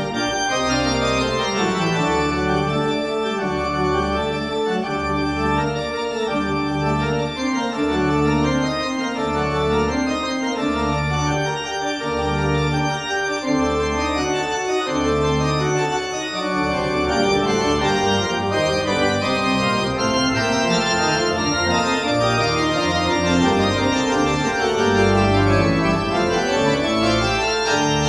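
Large pipe organ playing full chords over a bass line on the pedals. For about the first half the pedal notes move in even, separate steps; after that they are held longer.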